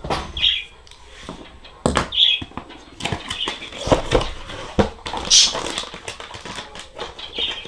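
Hands handling computer parts and packaging: rustling with many irregular clicks and knocks.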